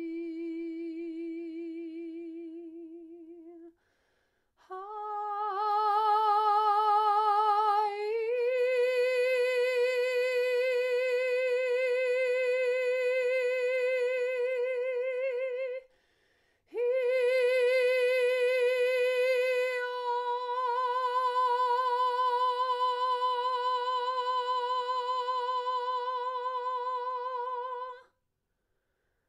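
A woman's voice toning wordless, long-held sung notes with a slow vibrato, with short pauses between them. The pitch steps up about eight seconds in and then holds on one note, with the vowel colour shifting about twenty seconds in.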